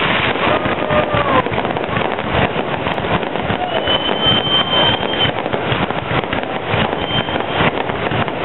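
Aerial fireworks display going off: a dense, continuous rapid series of bangs and crackles from many bursting shells, with a high steady whistle about four seconds in.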